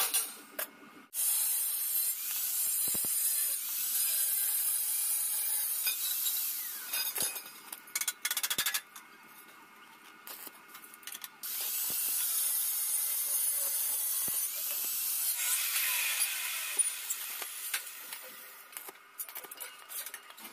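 Stick (arc) welding on steel: the electrode's arc crackling and hissing in two long runs, with shorter bursts and clicks in the quieter stretch between them.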